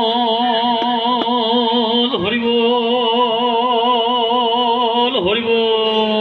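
A male lead singer of a nagara naam devotional chant holds one long note with a strong, even vibrato. The note dips briefly twice and then slides slowly down in pitch near the end.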